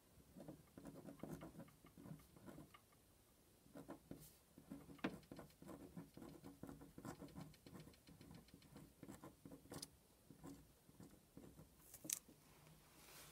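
Faint scratching of a pen writing on lined paper, in short irregular strokes as letters are formed, with a couple of sharper ticks.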